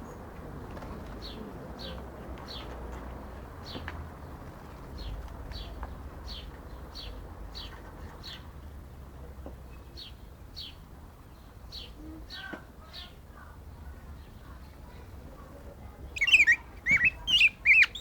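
Rey del bosque (black-backed grosbeak) calling and singing: a thin, short chirp repeated about once or twice a second, then near the end a loud, warbled song phrase of quick gliding notes.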